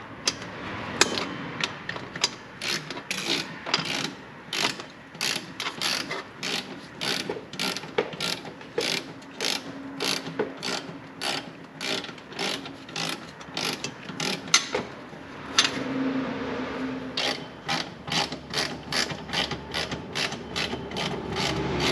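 Ratchet wrench clicking in steady strokes, about two clicks a second, with a short pause about 15 seconds in, as fasteners on a newly fitted exhaust are snugged up loosely while the pipes are positioned.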